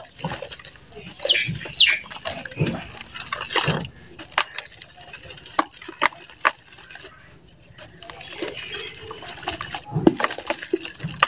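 Balls of dry dirt crumbling and crunching between the hands, the crumbs and grit pattering and splashing into a tub of water in irregular crackling bursts.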